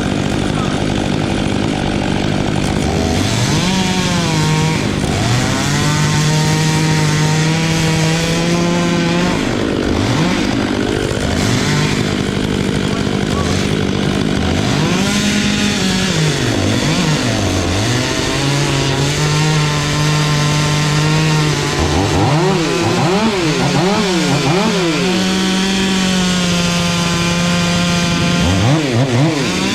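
Stihl MS 500i two-stroke chainsaw running at high revs and cutting wood. Its pitch holds steady, sags under load and climbs again several times, with quick up-and-down revving in the later part.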